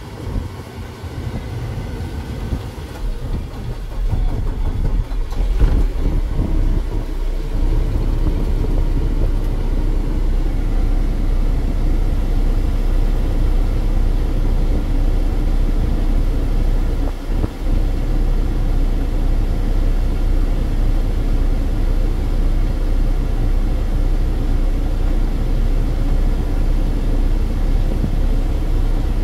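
Paccar 12.9-litre inline-six diesel engine of a 2015 Peterbilt 389 idling, heard from inside the cab. The sound is uneven and quieter for the first few seconds, then settles into a steady low idle.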